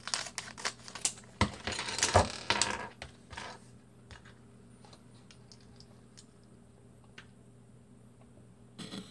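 A foil Lego minifigure bag being cut open with scissors and crinkling, with small plastic Lego pieces clattering onto a tabletop; the sharpest clicks come about one and a half and two seconds in. After about three seconds only faint, scattered clicks remain as the plastic pieces are handled and fitted together.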